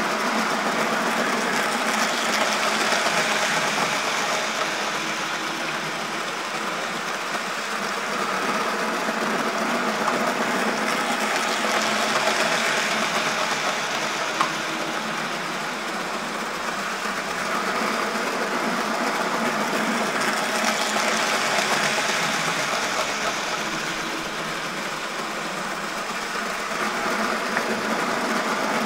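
Graham Farish N gauge model trains, a Class 37 diesel with tank wagons and a Class 350 EMU, running on the track: a steady whirr of the small motors and wheels on rail that swells and fades about every nine seconds as the trains come past close by.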